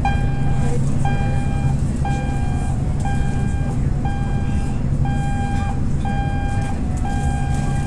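Ship's general emergency alarm signal sounded over the public-address system as part of the safety briefing: seven short beeps, about one a second, then a long tone that begins near the end. A steady low cabin drone runs underneath.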